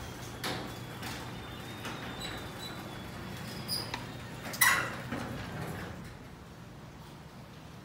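A bicycle being handled and pulled out from among other bikes and shelving: scattered metal clicks and knocks, a brief high metallic ping, and a sharp clank about four and a half seconds in, over a low steady hum that fades about six seconds in.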